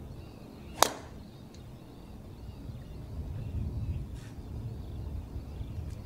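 A golf driver striking a ball off the tee: one sharp crack about a second in, the loudest sound here, then only a low steady outdoor rumble.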